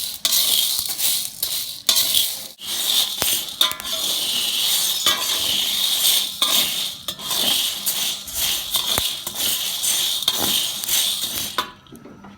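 Dry mung beans being stirred with a utensil in a pan as they toast: a steady rattling rustle of the beans broken by repeated scraping strokes against the pan, stopping near the end.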